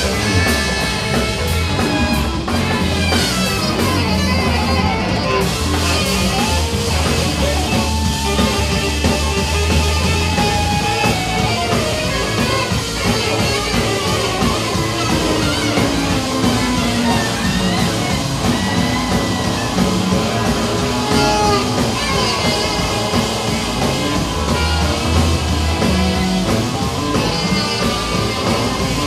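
Live band playing psychedelic rock: drum kit, electric bass and electric guitar, with a long falling glide in pitch midway through.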